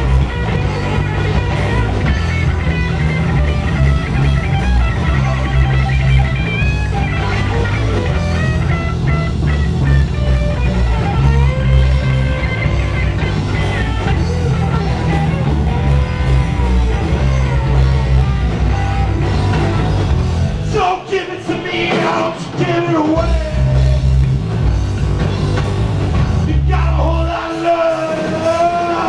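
Heavy metal band playing live and loud: distorted electric guitars, bass and drums with singing. Twice near the end the bass and drums drop out for a moment, leaving higher sustained guitar and voice notes before the full band crashes back in.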